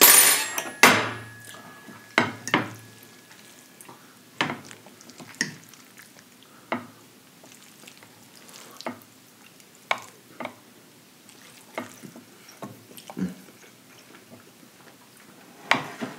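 Close-miked eating: scattered clicks and wet smacks, about one a second, louder in the first second or so. Metal serving tongs and forks click against plates and a glass baking dish, mixed with chewing and lip smacks.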